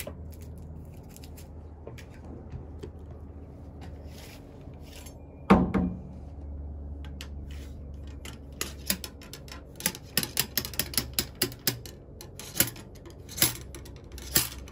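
Steel ramrod worked in a rifle-musket barrel: drawn out and driven down onto a Burton Minié bullet, a run of sharp metallic clicks and taps from about eight seconds in, several a second. A single loud thump comes about five and a half seconds in.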